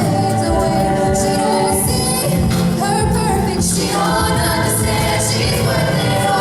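Music with several voices singing together over a steady accompaniment.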